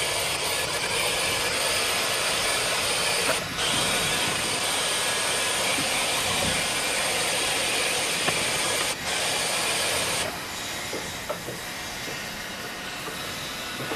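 Handheld cordless vacuum cleaner running steadily as it sucks spilled powder off a carpet, with two very short breaks; about ten seconds in it stops and a much fainter hiss remains.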